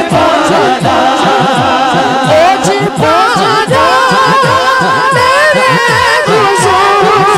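A naat sung live by male voices in a wavering, ornamented melody, with a repeating low beat of strokes that drop in pitch, several a second.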